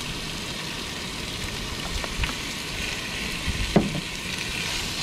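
Raw fish pieces sizzling in hot yellow curry paste in a pot on a portable gas camp stove. A spoon clicks and knocks against the pot as they are stirred, the loudest knock a little before the end.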